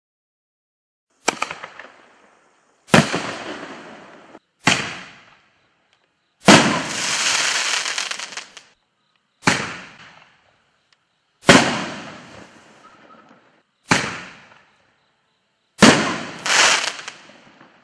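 Reloadable canister firework shells (Bright Star Super Nova) going off: nine sharp reports a second or two apart, each fading away over a second or two. One about six seconds in carries on for about two seconds before dying away.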